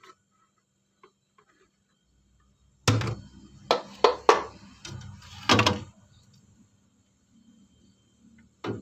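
A run of sharp knocks and clatters about three seconds in, lasting some three seconds, then a single knock near the end: hard objects or a door being handled.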